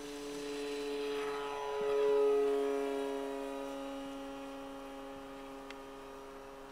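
Electric motor and propeller of a Multiplex Mentor RC model plane on take-off and climb-out: a steady whine that grows louder, peaks about two seconds in, then drops slightly in pitch and fades as the plane climbs away.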